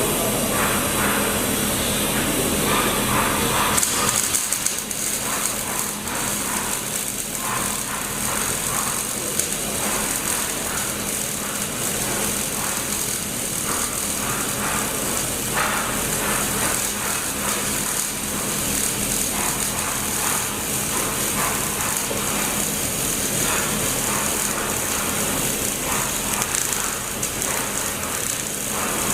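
Welding arc running steadily on a pipe joint: a continuous hiss with a fine crackle, over a low steady electrical hum.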